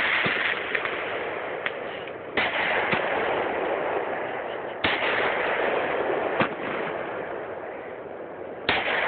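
Fireworks going off: three sharp bangs roughly two to four seconds apart, each followed by a long noisy tail that slowly fades, with a few smaller pops in between.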